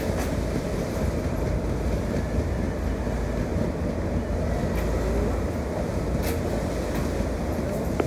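Steady low rumble of a wooden passenger boat under way through rough, choppy lake water, with wind buffeting the microphone. A few faint sharp ticks stand out now and then.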